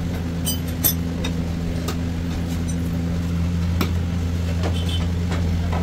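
A vehicle engine running steadily with a low, even hum, with scattered light clicks and taps over it.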